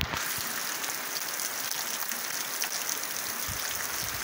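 Heavy rain pouring steadily onto a muddy dirt yard and trees: an even hiss with scattered close drop ticks.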